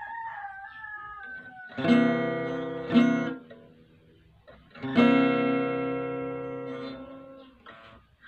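An acoustic guitar strums a major-seventh chord: two strums about a second apart, then a third about two seconds later that is left ringing for about two seconds. Just before the first strum, a rooster's crow trails off, falling in pitch.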